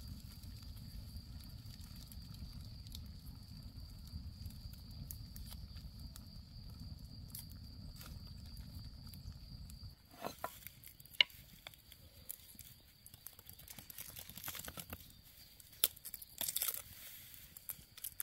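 Open campfire burning with a low rumble and occasional crackles, then, about ten seconds in, garlic being peeled with a small curved knife: papery skins rustling and tearing, with irregular sharp clicks of the blade on the cloves.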